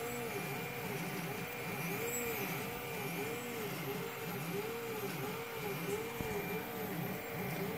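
3D printer stepper motors whining in smooth rising-and-falling sweeps, about two a second, as the print head moves through its print. A faint steady high tone runs underneath.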